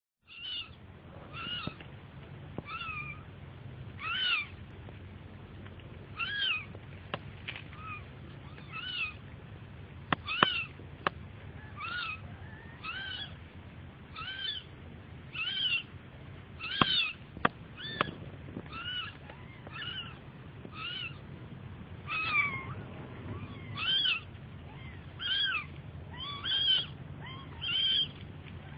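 Kitten mewing over and over: short, high calls that rise and fall in pitch, about one every second or so. A few sharp clicks fall between the calls midway through.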